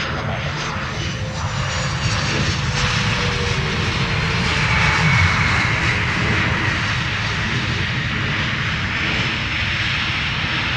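Fixed-wing aircraft's engines running loud as it passes, swelling to a peak about five seconds in, with a whine that glides down in pitch.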